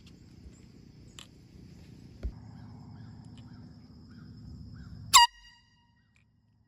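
One short air horn blast about five seconds in, over a low steady rumble, with a single thump a couple of seconds earlier.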